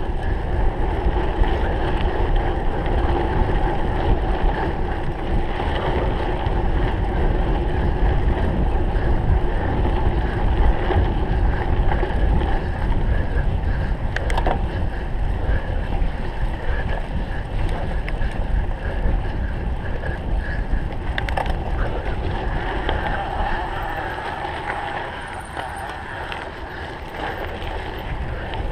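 Wind buffeting the microphone of a camera on a cyclocross bike ridden at race speed, a steady rushing rumble. Two sharp clicks come partway through, and the rush eases near the end.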